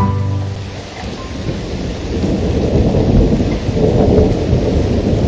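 Thunderstorm: rolling thunder over steady rain. The rumble swells after about two seconds in.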